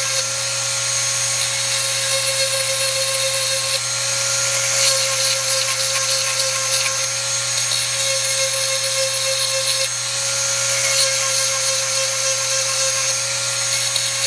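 Dremel rotary tool running with a steady high-pitched whine as its small grinding stone sharpens the cutting teeth of a chainsaw chain, taking metal off the underside of each tooth. The pitch dips slightly twice, about four and ten seconds in.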